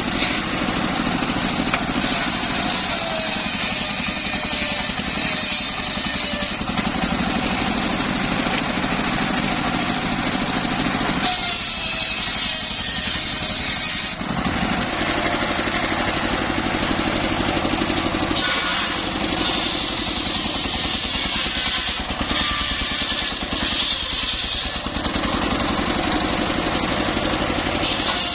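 Engine-driven saw of a mobile sawmill running and cutting timber, its sound shifting every few seconds as the load on the blade changes.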